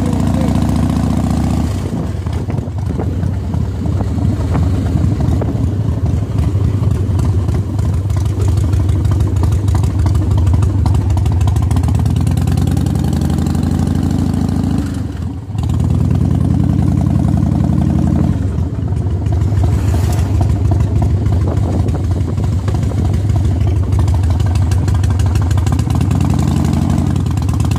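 Motorcycle engine running steadily while riding along. It drops off briefly about halfway through, then picks up again.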